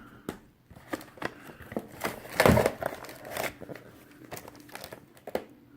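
Consumer firework cakes and their cardboard packaging being handled: a string of light knocks and rustling, with a louder stretch of rustling and scraping about two and a half seconds in.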